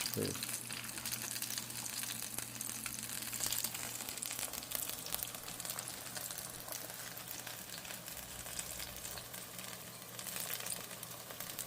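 Turon, banana and jackfruit spring rolls, deep-frying in hot oil: a steady sizzle with fine crackling. A steady low hum sits underneath.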